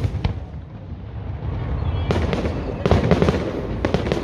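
Fireworks going off: two sharp bangs at the start, then a low rumble. From about halfway through come dense runs of crackling pops.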